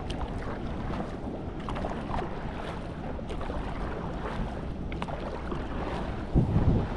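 Stand-up paddleboard paddle dipping and pulling through calm river water, with light splashes and drips over a steady hiss of wind on the microphone. Near the end comes a short burst of louder low thumping.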